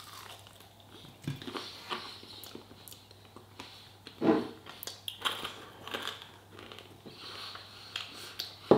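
A man chewing a mouthful of sauced chicken: soft wet clicks and smacks, with sniffs and one louder short mouth sound about four seconds in.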